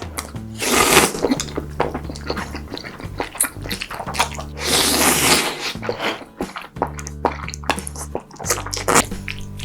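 Close-miked eating sounds of creamy food, wet squishing with many sharp clicks and two loud slurping swells about one and five seconds in, over background music with held bass notes.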